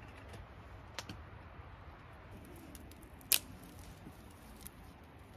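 Scissors snipping, with a sharp click about a second in and a louder one a little past three seconds, over faint background.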